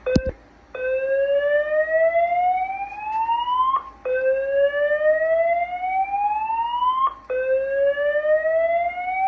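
A short click, then a fire alarm voice evacuation system sounding its slow-whoop alert tone: rising sweeps about three seconds long, repeated back to back, three in all, with the third cut off.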